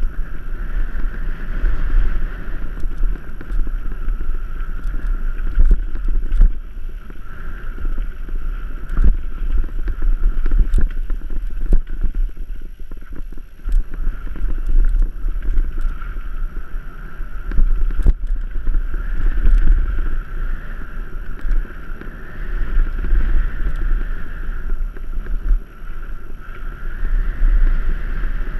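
Wind rushing over a mountain biker's camera microphone during a fast singletrack descent, a steady rumble with frequent short knocks and rattles from the bike going over bumps on the dirt trail.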